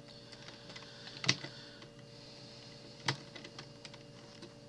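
A few scattered clicks of computer keys, the two loudest about a second and a quarter in and about three seconds in, over a faint steady electrical hum.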